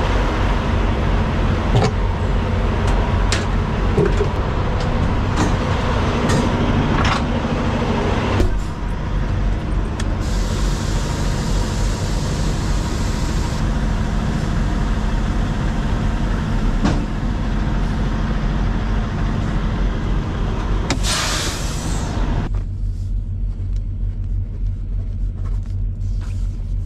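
Semi-truck diesel engine idling with a steady low hum, with scattered clicks in the first several seconds and a short burst of hiss about 21 seconds in.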